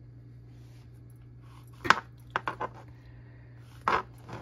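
A kitchen knife cutting through fresh mushrooms and striking a plastic cutting board. There is one sharp knock a little before two seconds in, three quick knocks just after it, and another, slightly longer, cut near the end.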